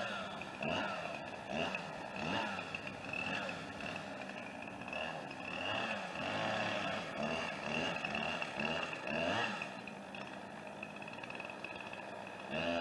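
Chainsaw running at a distance while cutting into a dead oak, its pitch rising and falling over and over as the throttle is worked.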